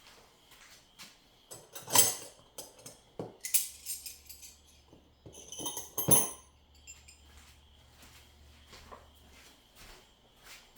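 Objects being handled: scattered clicks and knocks with short rustling bursts, the loudest about two and six seconds in.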